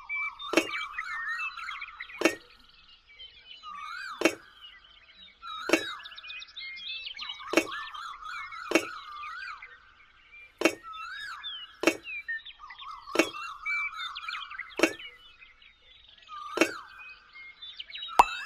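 Background sound-effect or music track: a sharp clinking strike about every one and a half seconds over warbling, bird-like whistling tones.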